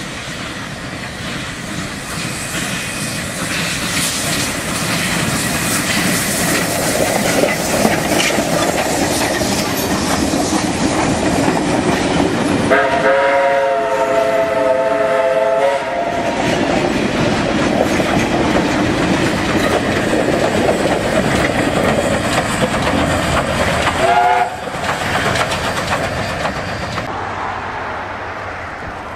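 South Maitland Railways 10 class steam locomotives passing with a train of passenger carriages, the wheels clattering over the rail joints. A long chime whistle sounds about halfway through, then a short blast a little after that, and the train noise fades near the end.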